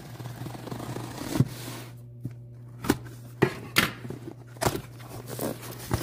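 Taped cardboard box being cut open with scissors, then its flaps pulled open: a scraping slice through the tape for about a second and a half, then a series of sharp cardboard clicks and knocks.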